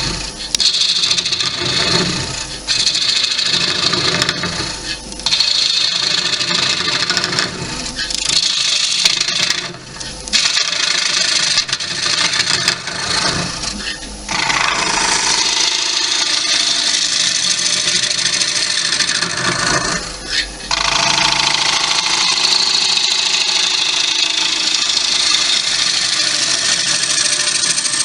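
A bowl gouge cutting into a wet cherry-wood bowl blank spinning on a wood lathe: a loud, steady rough cutting noise over the lathe's hum, broken by several short pauses in the cut.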